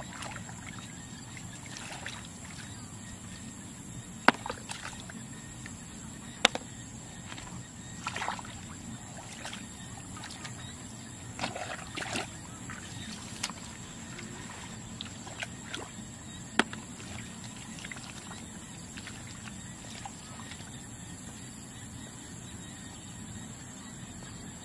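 Water sloshing and splashing now and then, with a few sharp knocks over a steady low background noise. The loudest knocks come about four and six seconds in.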